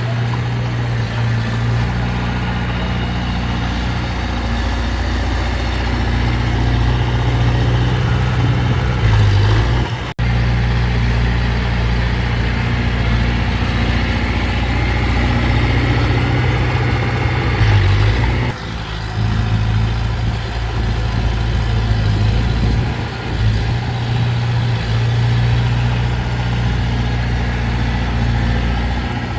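Heavy diesel engine of earthmoving machinery running steadily with a deep drone, broken by a brief sharp dropout about ten seconds in and a shift about two-thirds of the way through.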